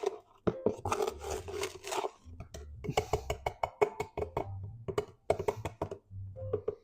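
A plastic tub of granulated sugar and a measuring cup being handled, with a string of sharp clicks and knocks and some rustling as the sugar is scooped out.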